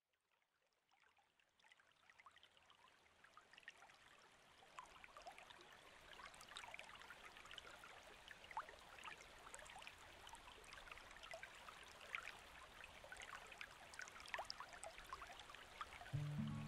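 Faint trickling-water sound, a soft hiss with many small drips and ticks, slowly fading in. Low music notes begin near the end.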